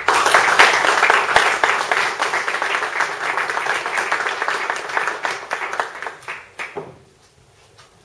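Audience applauding: dense clapping that starts all at once, thins out after about five seconds and dies away about seven seconds in.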